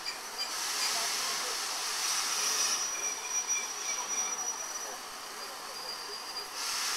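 Steam locomotive standing at the platform, letting off steam in two spells of hissing: one from about half a second in to nearly three seconds, and another starting near the end.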